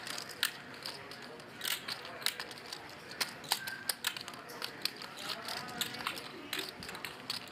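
Poker chips clicking against each other as players handle and riffle their stacks: irregular sharp clicks, several a second, over faint room chatter.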